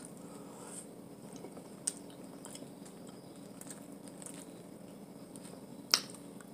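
Quiet eating of a seafood boil by hand: soft chewing and handling of the food over a faint steady hum, with a sharp click about six seconds in.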